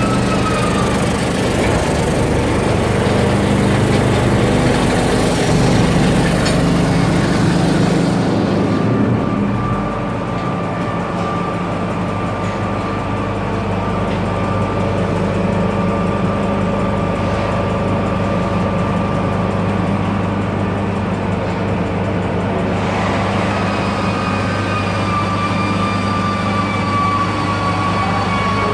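Industrial wood-aging (rustic surface) machine running with a steady hum and several held tones. Its upper hiss drops away abruptly about nine seconds in and returns about twenty-three seconds in.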